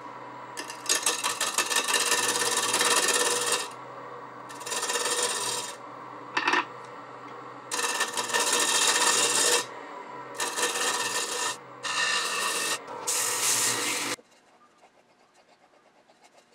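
Wood lathe running while a turning tool scrapes the rim of a spinning wooden disc to true it up before sandpaper goes on. The scraping comes in repeated passes with short pauses, over a steady motor hum. Tool noise and hum stop together about 14 seconds in.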